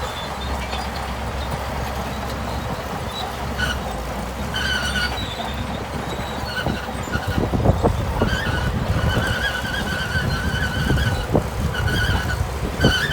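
Shantui crawler bulldozer at work: the diesel engine runs with a steady low rumble while the steel tracks squeal in short repeated bursts and clank, the squealing starting a few seconds in and the clanks getting more frequent toward the end.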